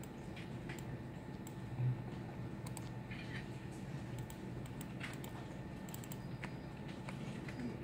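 Scattered light clicks of a computer mouse and keyboard being operated, over a steady low hum, with one short low thump about two seconds in.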